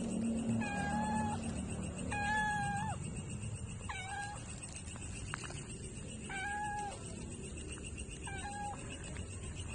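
Stray domestic cat meowing for food: five short meows a second or two apart, each held at a steady pitch.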